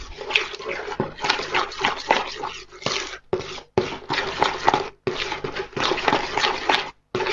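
Spoon beating eggs into creamed butter and sugar in a plastic mixing bowl: a run of wet scraping strokes, broken by a few short pauses.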